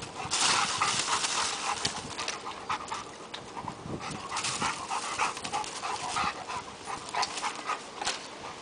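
A dog panting, with short scratches and scuffles as it paws at and climbs a palm trunk.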